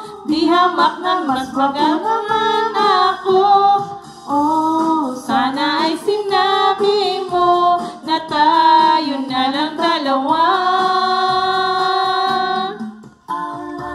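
A woman singing a Tagalog song into a karaoke microphone, her voice amplified through a portable karaoke speaker, in sung phrases that end in long held notes near the end.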